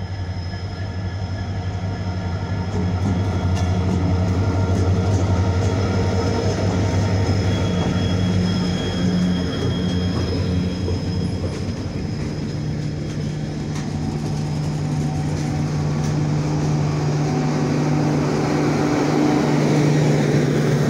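EMD WDP4D diesel-electric locomotive's 16-cylinder two-stroke engine running with a deep drone as it pulls a train out slowly and passes close by. About halfway through the drone gives way to the rolling noise of LHB passenger coaches going past.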